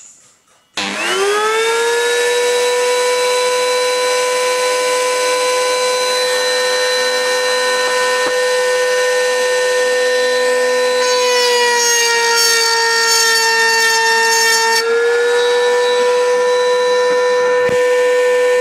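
Table-mounted wood router switched on, its motor spinning up with a quickly rising whine that settles into a steady high whine. About eleven seconds in, the pitch sags and a rough cutting hiss joins as the bit cuts into a board fed along the fence. The whine recovers about four seconds later when the cut ends.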